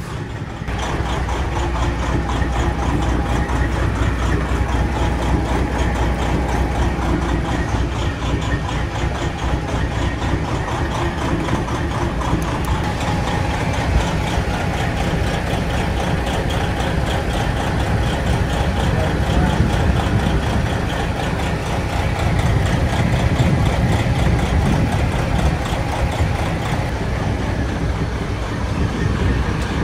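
Diesel semi-truck engine idling steadily with a low rumble, a little louder in the low end about three quarters of the way through.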